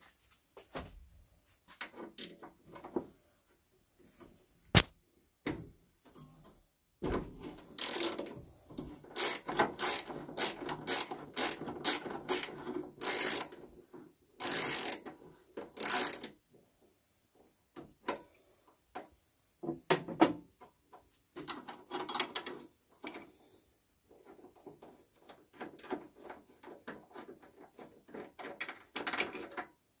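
Hands working on the metal burner assembly of a Vaillant gas wall boiler: irregular clicks, scraping and rattling of metal parts, with one sharp click about five seconds in.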